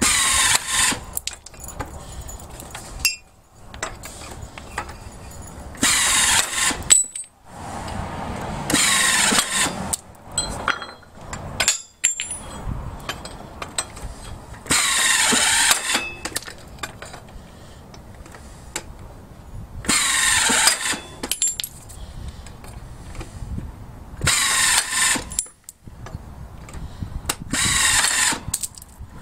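Blue Piranha hand-lever stone biter snapping chips off the edge of a stone slab. It makes a crunching crack about a second long, seven times a few seconds apart, with small clicks and taps between the bites.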